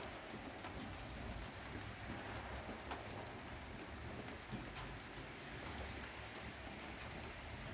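Wet falling snow pattering: a steady hiss with many small, scattered ticks over a low steady rumble.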